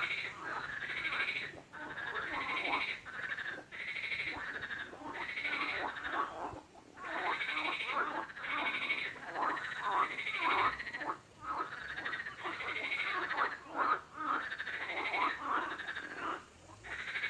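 Frogs croaking in a dense run of repeated calls, broken by brief pauses every few seconds.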